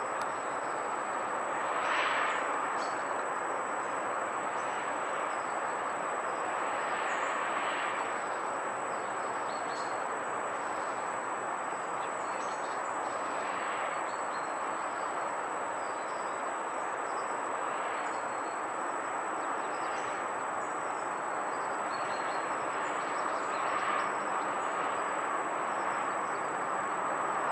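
Steady hum of distant road traffic that swells gently now and then, with a few faint bird chirps.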